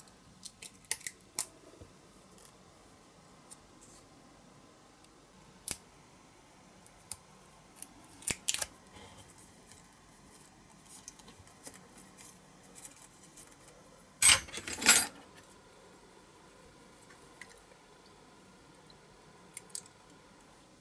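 Small metal hand tools and a clear plastic windscreen piece being handled and fitted to a model car body: scattered light clicks and taps, with two louder scratchy sounds about fourteen seconds in.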